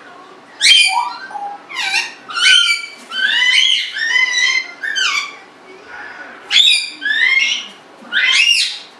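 Congo African grey parrot vocalizing: a string of about ten short, high whistled calls that rise and fall in pitch, with a short pause past the middle.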